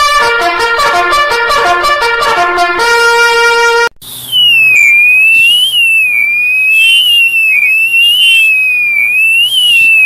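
Two fan-made emergency alert tones, one after the other. First a trumpet-like melody of quick notes that ends on a held note about three seconds in. Then, after a brief break, comes a loud electronic alarm whose pitch sweeps up and down over and over, with a low steady hum beneath it.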